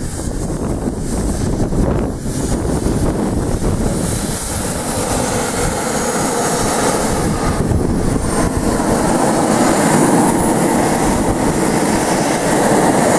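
Turbine engines of large radio-controlled Sukhoi Su-27 Flanker model jets running while they taxi, a high whine that wavers up and down in pitch over a steady rush, growing louder as the jets come closer.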